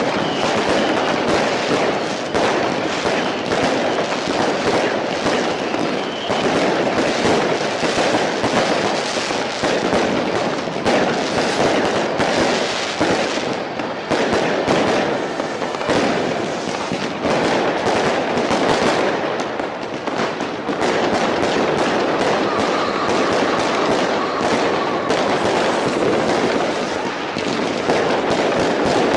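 New Year's Eve fireworks and firecrackers going off densely and without a break: a continuous mass of rapid crackles and bangs.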